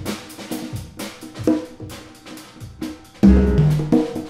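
Congas played with bare hands, a run of sharp drum strokes with a drum kit alongside in a small jazz group. About three seconds in, a loud low note comes in.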